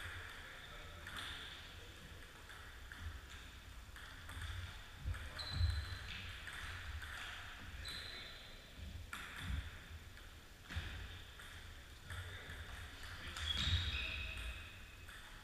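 Scattered sharp clicks of a table tennis ball off bats and the table and bouncing on a wooden floor, with low thuds in between.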